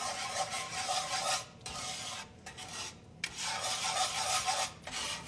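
Wire whisk stirring and scraping creamy sauce in a cast iron skillet. The scraping is steady and breaks off briefly several times.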